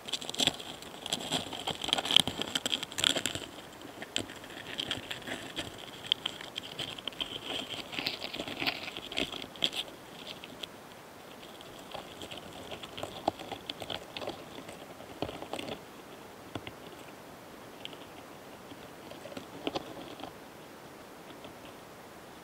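Close-miked karakane hana-kamikiri flower longhorn beetles mating: a dense, scratchy crackle of tiny clicks and rasps with a high-pitched edge, busiest in the first ten seconds and then fainter and sparser.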